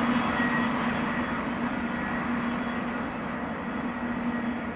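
Freight train rolling past, a steady rumble of cars and wheels on the rails with a low hum, slowly fading.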